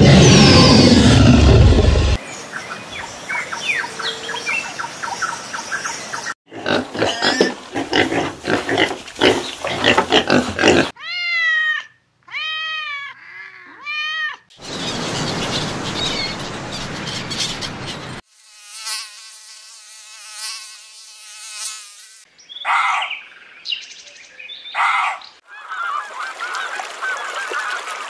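A sequence of animal sounds: a loud dinosaur roar for the first two seconds, several cat meows a little before halfway, and domestic geese honking near the end.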